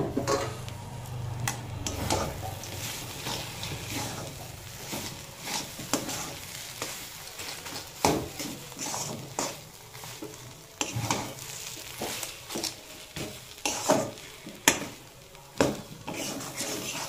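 A spatula stirring and scraping a thick vegetable mash in a metal kadai, with irregular knocks of the spatula against the pan and a light sizzle of frying underneath.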